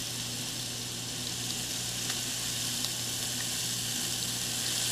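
Steady hiss over a low hum, with a few faint light ticks as lye is poured slowly into a plastic bowl of water.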